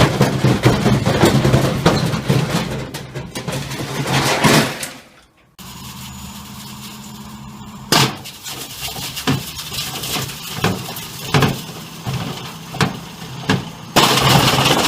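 Washing machine running with heavy objects loose in the drum: loud banging and clattering over the motor's hum. After a sudden cut it is quieter, with one knock about every 0.7 seconds as the drum turns, and the loud clattering returns near the end.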